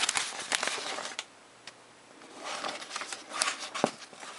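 Paper pages of a plastic-model-kit instruction manual being flipped and rustling by hand, with a pause of about a second in the middle and a few sharp page flicks later on.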